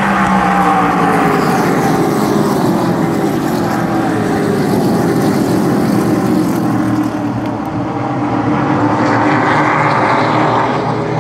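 A pack of SRX stock cars racing past at speed, engines running loud. The engine note falls in pitch as the cars go by, then rises again near the end as more cars come around.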